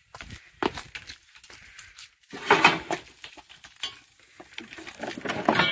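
Golf cart being tipped over onto its side on concrete: clattering, knocking and scraping of the body and frame, loudest about two and a half seconds in.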